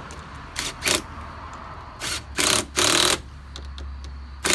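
Several short rasping bursts, each under half a second, from hand work on battery cables and wiring. The three longest come in a quick cluster between about two and three seconds in.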